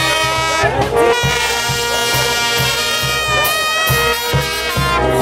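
Live brass band playing: trumpets hold the tune over a tuba keeping a steady bass beat.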